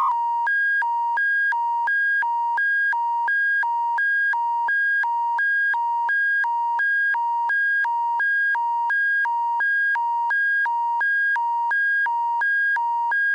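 Electronic emergency alert attention signal: a brief single tone, then a low and a high tone swapping back and forth, each about a third of a second long, repeating steadily.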